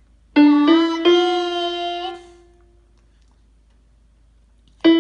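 Electronic keyboard playing three notes stepping upward in quick succession, the third held about a second before fading, then, after a pause of about two seconds, another note struck near the end.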